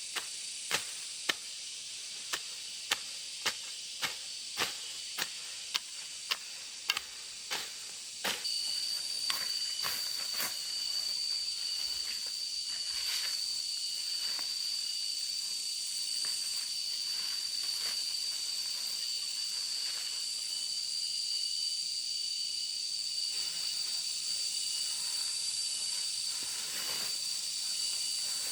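Sharp knocks at about two a second for the first eight seconds or so, like a hand tool striking wood, then they stop. A steady high-pitched whine over a hiss sets in and runs on.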